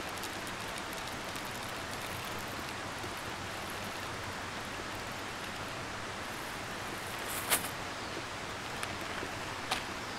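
Steady rushing of a flowing river. About seven and a half seconds in there is one sharp crinkle, and near the end two small clicks, from a packet being handled.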